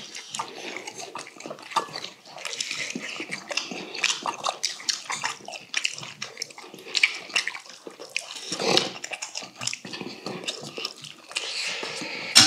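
Close-up eating sounds: wet chewing and slurping of stewed bracken fern stems and broth, with short clicks of chopsticks, spoon and ladle against stainless steel bowls and pot.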